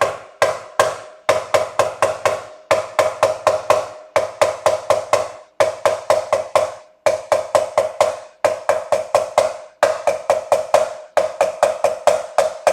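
A hammer tapping quickly along the frets of a Squier Strat SE neck, about four to five sharp taps a second in short runs, each with a brief ringing tone. The frets are being tapped to re-seat any that have lifted, before levelling.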